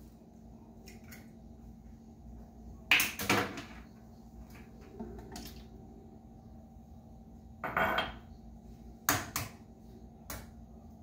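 Eggs being cracked into a small ceramic ramekin and tipped into a blender jar, with the ramekins clinking on the counter: a few sharp knocks and taps about three seconds in, and again around eight to ten seconds.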